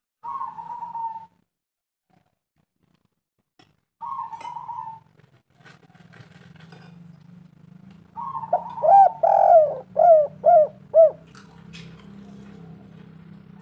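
Spotted dove cooing: a single drawn-out coo at the start, another about four seconds later, then a quicker phrase of about six short, arching coos. A low, steady hum runs underneath through the second half.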